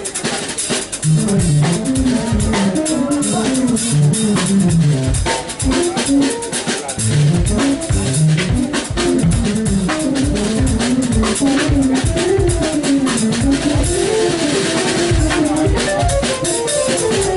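Live jazz jam: a drum kit keeps up busy cymbal and drum work under a running melodic line played on a keytar.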